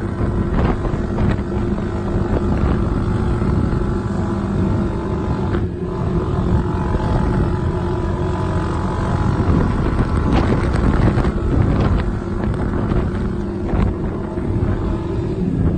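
Four-wheeler (ATV) engine running steadily under way, with wind noise on the microphone.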